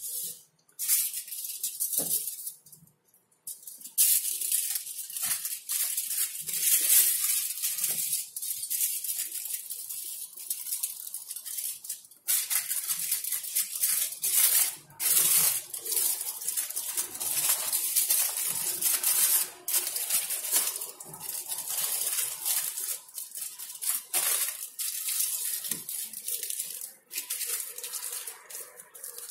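Aluminium foil crinkling and crackling as it is wrapped by hand around a small container. It goes in a long run of dense crackles, with a short pause about three seconds in.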